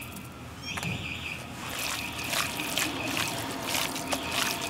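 A hand squeezing and mixing seasoned raw lamb in a bowl, a wet squelching with dense crackles that starts about a second and a half in. A faint repeated chirping is heard in the background.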